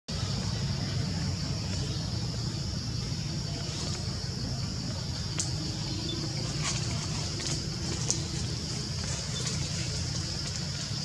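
Steady outdoor background noise: a low even rumble under a constant high hiss, with a few faint clicks about halfway through.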